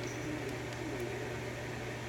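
Steady low hum with a few faint, light clicks about half a second apart, as small lock parts are handled during disassembly of a pin-tumbler rim cylinder.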